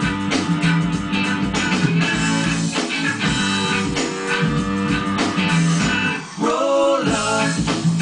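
Guitar-led music with plucked notes over a steady bass line; one phrase bends in pitch a little past halfway.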